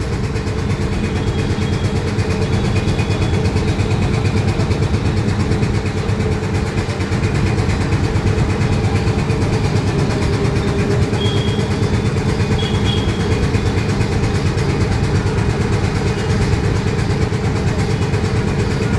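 Belt-driven 5 HP double-piston air compressor, powered by a 3 HP single-phase Crompton electric motor, running steadily with a fast, even pulsing beat.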